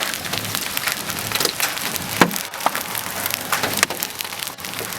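Large hailstones, golf-ball size, striking hard surfaces in a dense, irregular patter of sharp cracks and knocks over a steady rain hiss. The loudest crack comes about two seconds in.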